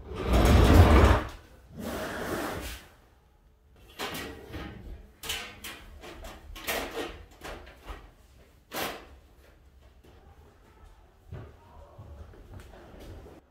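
Furniture being shifted and handled: a loud scraping shuffle at the start and another about two seconds in, then a run of knocks and clatters as stools and chairs are moved and bumped, quieter near the end.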